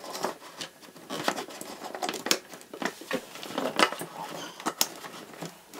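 Cords and plugs being handled and pushed into network equipment: irregular clicks, taps and rustling of cables.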